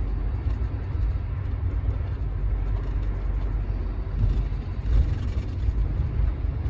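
Bus engine and road noise heard from inside the cabin while it drives: a steady low rumble, swelling a little about five seconds in.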